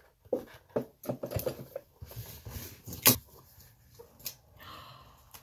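Cardboard speaker packaging being handled and opened by hand: a run of light scrapes and taps, with one sharp click about three seconds in and a soft sliding scrape near the end.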